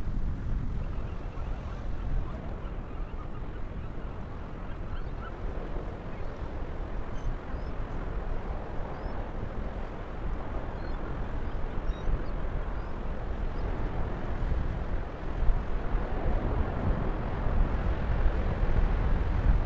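Outdoor waterside ambience dominated by wind rumbling on the microphone, with a few faint bird calls in the middle.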